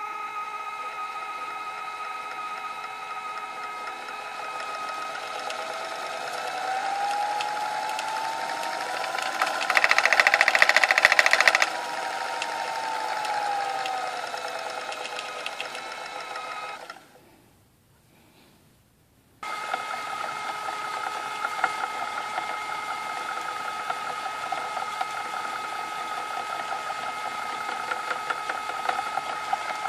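Electric Eel Wheel electric spinning wheel running: a steady motor whir from the spinning flyer, rising in pitch as the speed is turned up, with a loud rattling clatter for a couple of seconds at top speed, then falling as it is turned back down. After a brief near-silent gap, a second Electric Eel Wheel runs steadily with a light ticking.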